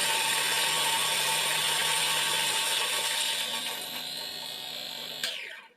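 Electric burr coffee grinder running, grinding coffee beans on its medium setting with a dense grinding whir. It gets a little quieter about three seconds in, then is switched off a little after five seconds and the motor spins down with a falling whine.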